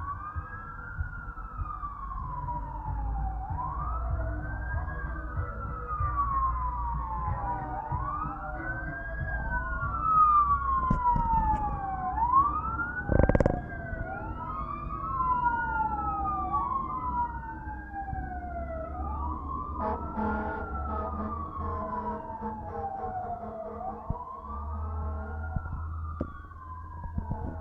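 Fire truck sirens, two wailing together out of step, each rising and falling about every four seconds, over a low vehicle rumble. A short loud blast cuts in about halfway through.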